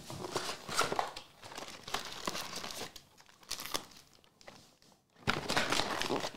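Crinkling, rustling handling of a cardboard hobby box and the foil-wrapped trading card packs inside it as the box is opened and the packs are pulled out. It comes in several irregular bursts, the loudest near the end.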